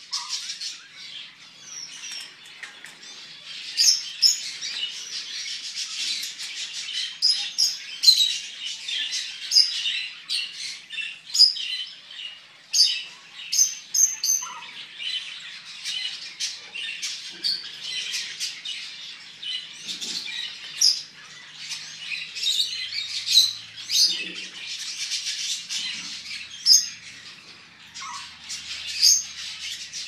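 Many caged birds chirping and calling over one another in a dense, continuous chatter of short high calls, with louder sharp calls standing out every second or so.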